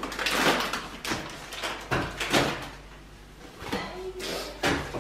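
Groceries being unpacked from a reusable plastic shopping bag: repeated bursts of bag rustling and handling noise, with a few sharp knocks.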